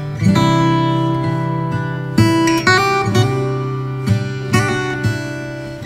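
Background music: acoustic guitar strummed in chords, a fresh strum every half second to a second.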